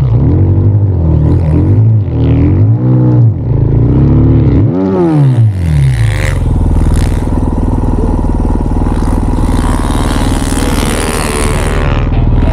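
Snow bike engine (a dirt bike on a Timbersled track kit) revving up and down several times while riding through deep powder, then holding a steady pitch from about six seconds in.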